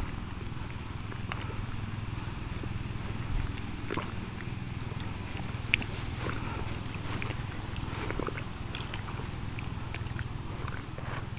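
Steady low wind rumble on the microphone, with a few faint clicks.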